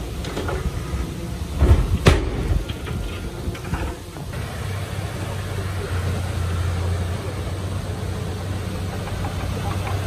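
Komatsu D31P bulldozer's diesel engine running, with two sharp knocks about two seconds in; after that the engine settles into a steady low drone.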